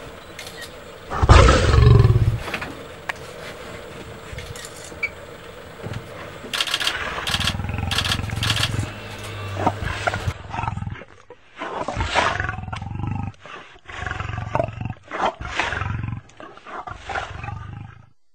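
Lion roaring: a loud roar about a second in, longer low roars later, then a run of short roars in quick succession that cuts off abruptly near the end.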